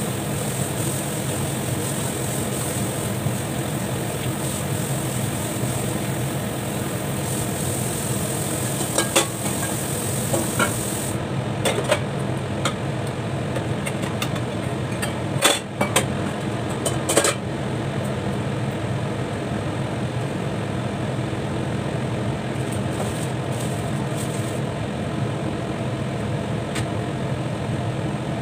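Steady low mechanical hum with a rushing noise, from kitchen equipment running while a covered pot of curry simmers. In the middle come a string of sharp metallic clinks of pots and utensils.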